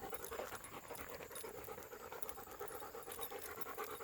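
German Shepherd dogs panting steadily in quick, even breaths while out on a walk.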